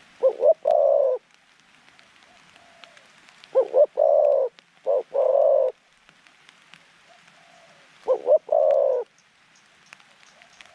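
Caged decoy dove cooing in three phrases, each made of two quick short notes followed by a longer rolling coo; the middle phrase adds a second short note and coo.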